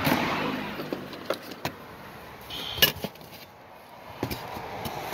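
Cardboard boxes and objects being shifted about and packed away: rustling and scraping, with several light knocks and clicks.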